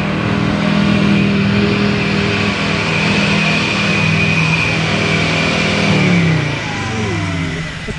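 Off-road 4x4's engine held at steady high revs under load while pushing through a hard trail section, then the revs falling away about six seconds in.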